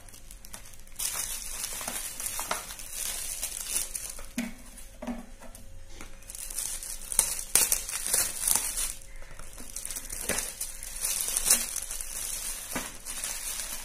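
Metallic foil gift wrap being torn and crumpled by hand, crinkling irregularly with sharp crackles that grow louder in bursts after the middle.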